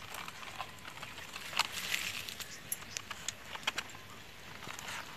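Thin binding wire being pulled and unwound from a charred banana-stem roll: scattered light clicks, scratches and rustles.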